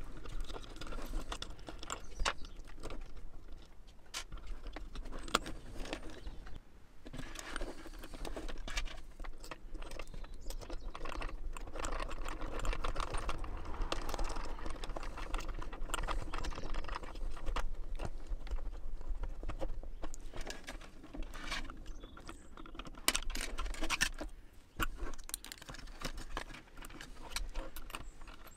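Small plastic and metal parts handled on a wooden table: irregular clicks, taps and light rattles from a Juntek VAT-1300 shunt's plastic case, circuit board, bolts and ring-terminal cables as it is taken apart and its cables reconnected.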